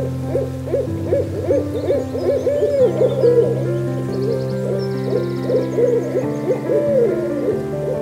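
Owl hooting in a quick run of short calls, each rising and falling in pitch.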